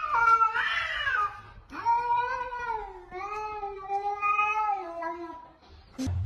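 A cat yowling: a short wavering yowl, then a long drawn-out one lasting about three and a half seconds, with a click just before the end.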